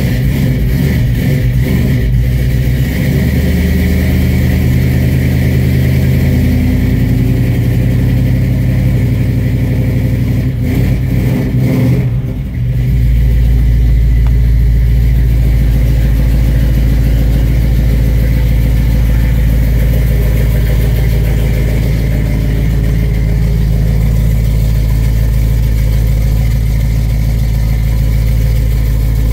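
1971 Chevrolet C20 pickup's engine running at idle, its note shifting during the first several seconds and faltering briefly about twelve seconds in before settling into a steady, deeper run. The owner thinks the distributor is still a tooth out of time.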